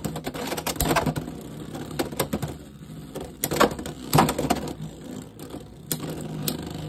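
Two Hasbro Beyblade X spinning tops running in a plastic stadium, with sharp clacks as they hit each other or the stadium wall: about a second in, several close together around three and a half to four seconds, and again near six and a half seconds. A steady low hum runs underneath.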